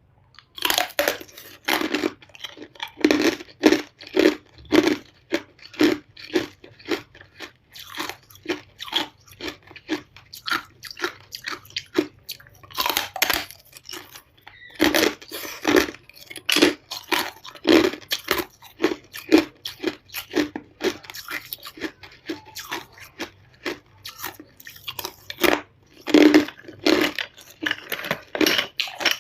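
A person biting and chewing hard ice close to the microphone: rapid, loud crunches one after another, with a couple of brief lulls.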